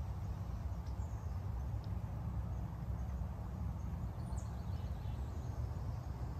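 Quiet outdoor ambience: a steady low rumble with an even background hiss, and a few faint, brief high chirps.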